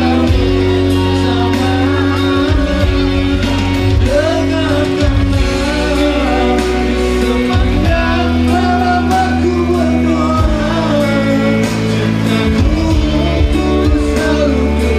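A man singing through a microphone over amplified band music, with a steady bass line and held chords underneath.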